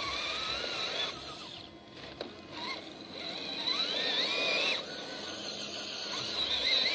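Electric motor and gear train of a radio-controlled scale crawler whining in spells, the pitch rising and falling with the throttle. It drops away about a second and a half in and again just before five seconds.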